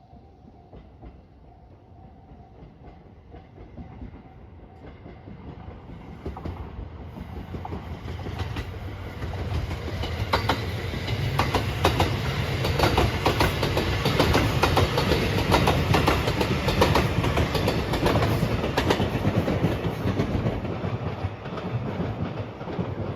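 Passenger train passing at speed over a level crossing, its wheels clattering over the rail joints; it builds from faint to loud over about ten seconds and eases off slightly near the end.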